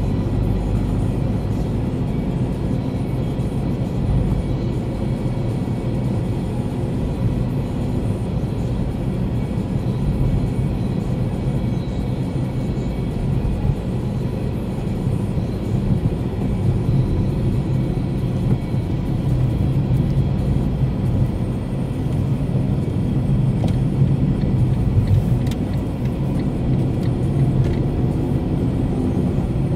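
Steady road noise of a car driving, heard from inside the cabin: a continuous low rumble of engine and tyres on the road surface.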